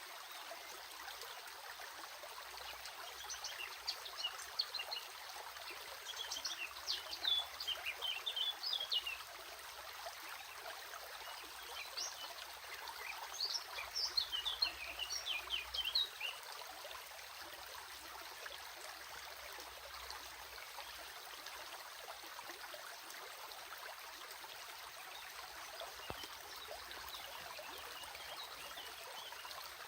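Stream flowing steadily, with a bird calling in two runs of quick high chirps in the first half and a few faint chirps near the end.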